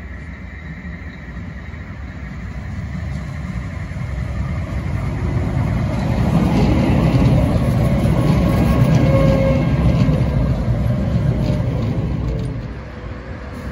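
A Sheffield Supertram tram approaching along the rails and passing close by. Its running sound rises steadily, is loudest as it goes past, and falls away quickly near the end.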